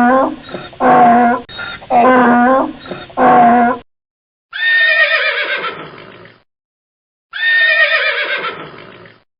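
Recorded animal calls: four short, wavering bleats about a second apart, then after a pause two longer calls that fall in pitch, the second about three seconds after the first.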